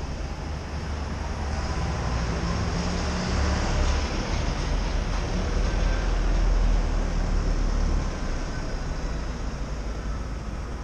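City road traffic at a junction: a double-decker bus's diesel engine and passing cars, the low engine sound growing to its loudest about six to eight seconds in, over a steady hiss of tyres on the road.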